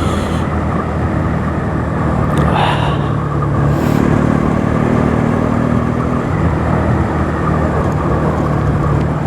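Bajaj Pulsar NS200's single-cylinder engine pulling under way, its pitch shifting several times as throttle and gears change, over steady wind noise.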